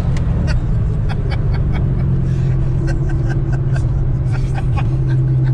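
Whipple-supercharged 6.2-litre V8 of a 2011 Camaro SS holding a steady low note while cruising, heard from inside the cabin. Scattered light clicks run over it.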